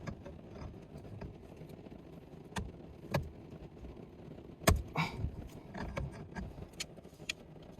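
Scattered metallic clicks and knocks of hand tools working a car's steering wheel loose from its column shaft, the loudest a sharp knock a little past halfway.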